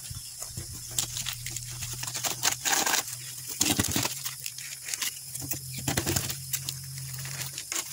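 Kitchen knife cutting and scraping through damp potting soil and roots inside a plastic bucket, in irregular scratchy crunches and taps, as the plant clump is cut free around its root ball.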